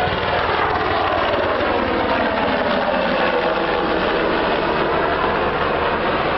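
Black Hawk helicopter flying low overhead: fast rotor chop under a loud engine noise, with a tone that falls in pitch over the first few seconds as the helicopter passes and draws away.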